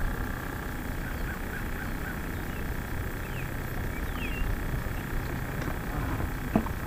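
Open-air ambience on a boat on the water: a steady low rumble with a few faint bird chirps. Near the end come several sharp knocks as the angler moves toward a rod in its holder.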